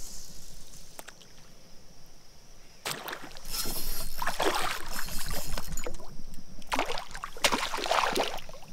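A hooked bass splashing and thrashing at the surface as it is played toward a canoe, in repeated bursts starting about three seconds in.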